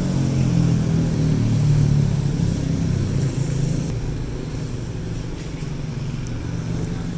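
Street traffic: the engines of road vehicles running close by, one engine loudest in the first three seconds and then easing a little.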